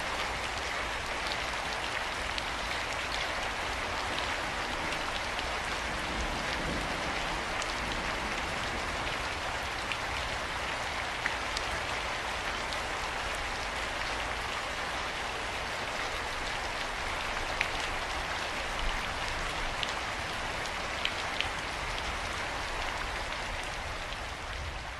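Steady rain falling, an even hiss with a few sharper drop ticks now and then.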